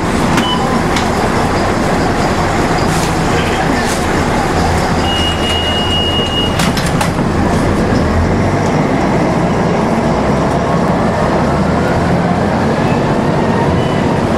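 Volvo B10M Mk2 bus heard from inside the cabin, its six-cylinder diesel engine droning steadily as the bus pulls away from a stop and drives on. A high steady beep sounds for over a second about five seconds in, and a faint rising whine comes in the second half as the bus gathers speed.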